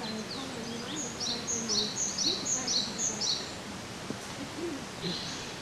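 A small songbird singing a phrase of about six quick repeated two-note figures, each a higher note dropping to a lower one, with a few scattered thin calls before it and a short burst of notes near the end.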